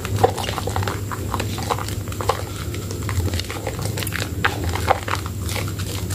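A hand squeezing and kneading a soaked bar of Medicare White soap in thick lather: irregular wet squelches and crackles, over a steady low hum.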